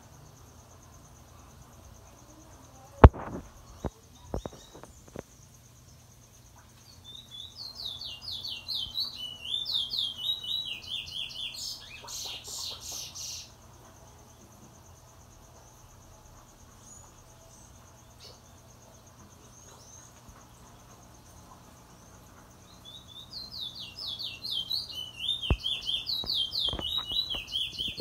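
Caged Trinidad bullfinch singing two bouts of rapid, high chirping notes, the first ending in a harsh buzzy stretch. A single sharp knock about three seconds in, with a few lighter clicks after it.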